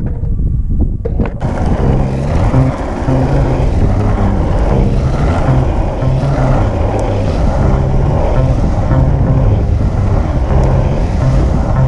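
Background music with a bass line that steps between notes, coming in about a second and a half in, over wind and road noise from the ride.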